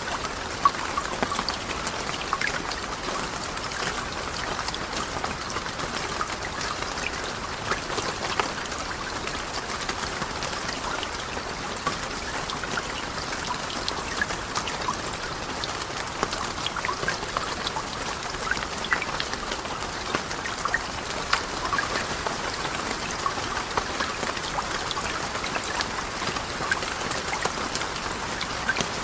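Steady rain: a continuous hiss scattered with many small, sharp drop impacts.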